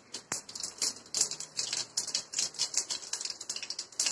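Mustard seeds popping and spluttering in hot oil in a wok: a rapid, irregular crackle of sharp little pops, the sign that the oil is hot enough and the seeds are tempering.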